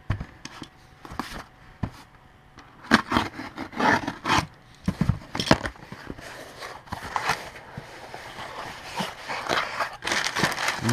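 Cardboard shipping box being handled and opened: irregular scraping and tearing of tape and flaps with a few knocks, then brown packing paper rustling near the end.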